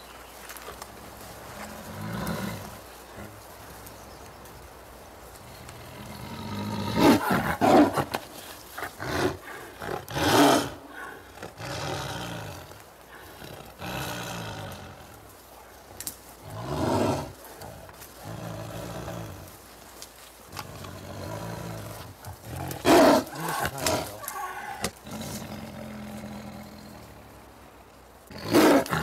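A Siberian tiger caught in a snare, roaring in loud outbursts every few seconds, with lower growls between them.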